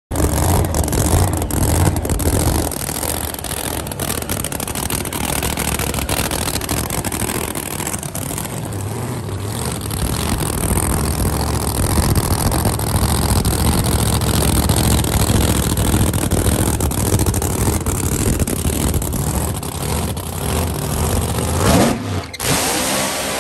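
Big-tire drag car's engine running loudly at idle as the car rolls slowly up the track toward the line. A brief louder surge comes near the end, then the sound breaks off sharply.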